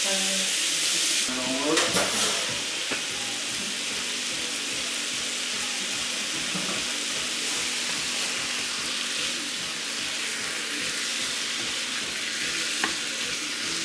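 Cubed chicken, coated in olive oil and crushed red pepper, sizzling steadily in a hot pan. There is a single sharp click near the end.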